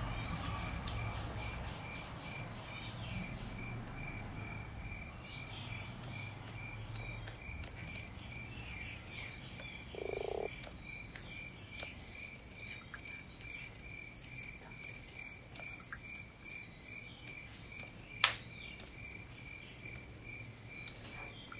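An animal's high-pitched call repeated evenly, about two short pulses a second, over low background hiss. There are scattered faint clicks, and one sharp click about 18 seconds in is the loudest sound.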